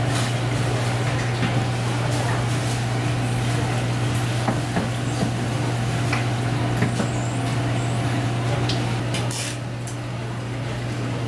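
A steady low machine hum, with scattered light clicks and clatter over it.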